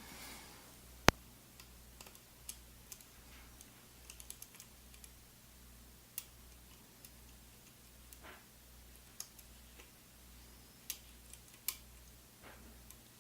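Sparse small clicks and taps of a hook pick working the discs of a MIWA U9 sidebar lock, with one sharp click about a second in, over a faint low hum.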